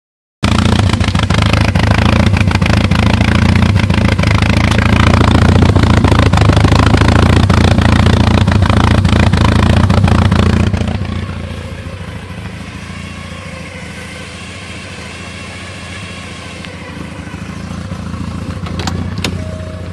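Porsche 944 four-cylinder engine idling roughly, an owner-reported fault whose cause is not yet known. It is loud at first and much quieter from about halfway on. Near the end come a few clicks and an on-off beeping tone.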